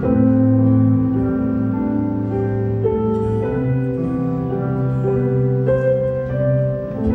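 Live acoustic guitar and stage keyboard playing an instrumental passage of a slow waltz, held chords changing about once a second, with no singing. The sound briefly dips near the end.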